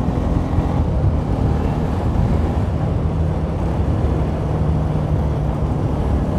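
Motorcycle engine running steadily while riding along at cruising speed, with wind and road noise rushing over the handlebar microphone.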